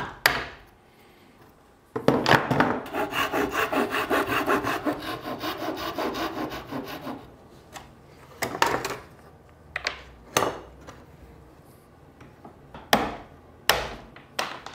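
A hand saw cutting a tenon into the end of a laminated wooden deck beam, in quick strokes about five a second for some five seconds. After that come a few separate short knocks and scrapes of wood being worked.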